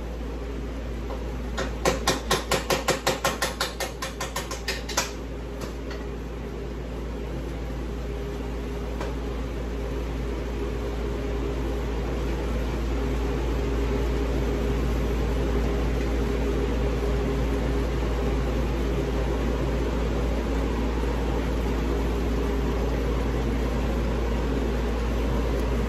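A quick run of about fifteen sharp metal taps, roughly six a second, from hand tools working on a mower deck spindle assembly, followed by a couple of single clicks. Under it runs a steady mechanical hum, like a shop fan, that grows slightly louder.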